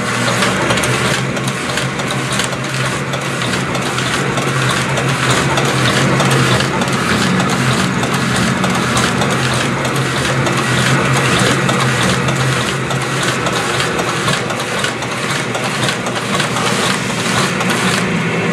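EFS Pro envelope sealer running: its motor and conveyor belts give a loud, steady hum over a whirring rush, with a faint regular beat.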